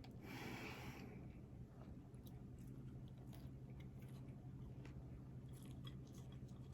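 A person biting and chewing burger and fries close to the microphone, loudest in the first second, then soft chewing with small wet clicks over a low steady hum.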